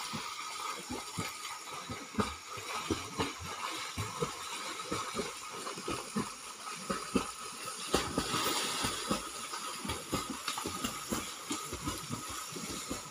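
Swimmers splashing in a pond: a quick, irregular run of splashes from kicking legs and arm strokes over a steady hiss of churned water.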